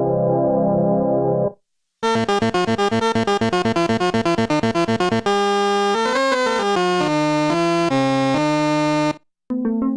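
Roland Juno-60 analog synthesizer playing three short demo passages, each cut off abruptly. First a dark, muted chord that stops about a second and a half in. After a short gap comes a fast, bright arpeggio of rapid repeated notes, then a bright held lead line that steps through a melody with a brief pitch bend and cuts off near the end.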